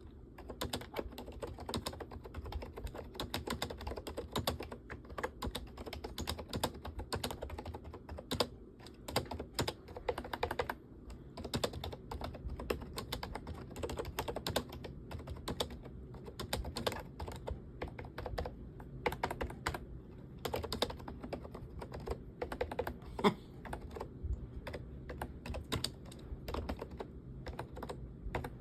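Typing on a keyboard with an iPad: a fast, steady stream of key clicks, with a couple of short pauses.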